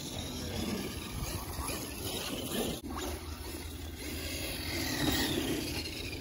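Electric radio-controlled cars, among them a Traxxas X-Maxx, driving across grass: the motors whine up and down in pitch over steady tyre and drivetrain noise.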